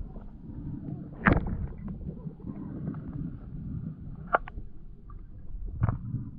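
Low rumbling handling noise with three sharp knocks, the loudest just over a second in.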